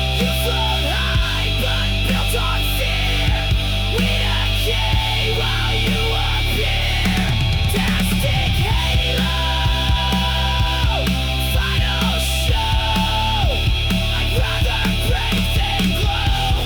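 Heavy, distorted grunge-style rock music without vocals: loud guitars over bass and a steady drum beat, with bending lead-guitar lines.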